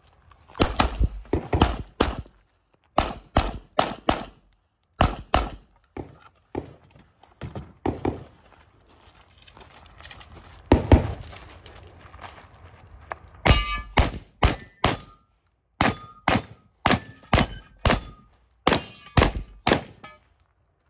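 Gunshots fired in quick strings of several shots, with short pauses between the strings. In the later strings a Benelli M2 semi-automatic shotgun is firing, and steel targets ring briefly after hits.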